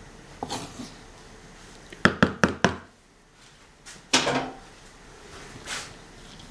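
A wooden spatula knocks about five times in quick succession against the rim of a wooden bowl, with softer rustling of couscous grains being stirred and worked by hand before and after.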